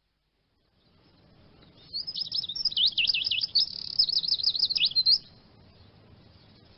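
Eurasian siskin singing: one rapid, twittering phrase of quick rising and falling high notes lasting about three seconds, over a faint steady hiss.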